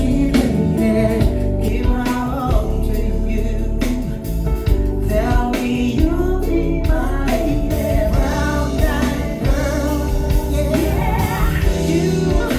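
A song with singing and a heavy bass line, played loud through a JBL PartyBox party speaker.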